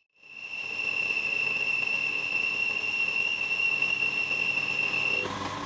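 Milling machine running an end mill along the edge of a steel plate: a steady high whine with fainter overtones above it, over a hiss of cutting noise. The whine stops about five seconds in.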